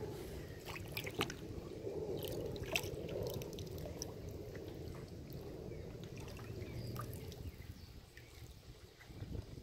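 Water splashing and trickling against a kayak, with scattered small sharp drips and clicks; it eases off about eight seconds in.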